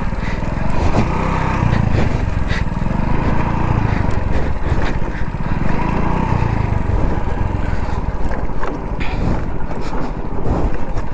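Hero Splendor 100cc single-cylinder motorcycle engine running under a rider and pillion on a rough, rocky downhill track, with a low pulsing rumble that swells a couple of times and a few short knocks from the bike over stones.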